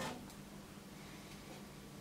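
Faint handling sounds of a small engraved metal block being positioned by hand against the diorama's window surround: a short rustle at the start, then a few light taps, over a steady low hum.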